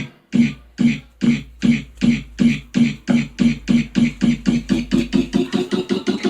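Music: a short pitched pulse repeating faster and faster, from under two a second to about five a second, in a build-up.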